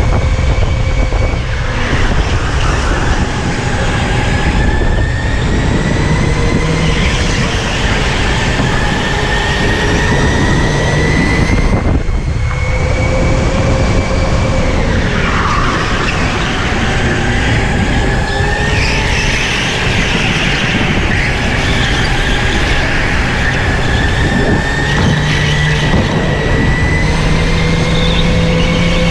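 Electric go-kart's motor whining, its pitch slowly climbing as the kart gathers speed and dropping back as it slows for corners, several times over, above a heavy rumble from the chassis and tyres.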